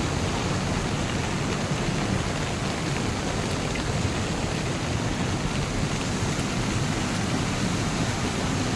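Steady heavy rain, an unbroken hiss with a low rumble beneath it.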